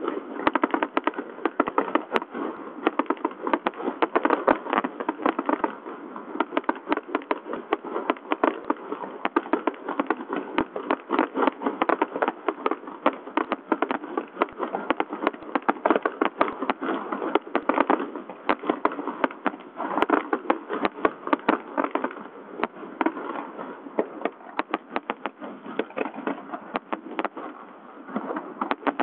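Aerial fireworks display: a dense, unbroken stream of bangs and crackle from bursting shells, many a second.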